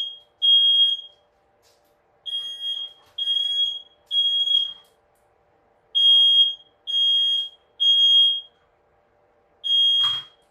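Smoke alarm sounding, high-pitched beeps in repeating groups of three, set off by smoke from paper being burned indoors. Near the end there is a knock and the beeping stops.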